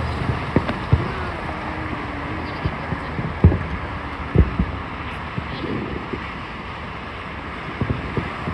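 Fireworks bursts going off as sharp bangs, the loudest about three and a half and four and a half seconds in, over a steady rumble of wind and crowd noise.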